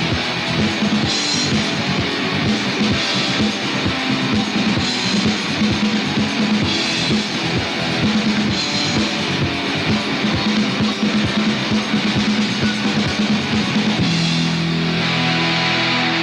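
Rock band playing live: electric guitars over a driving drum-kit beat in an instrumental passage with no vocals. About two seconds before the end the drumming drops away and held guitar chords ring on.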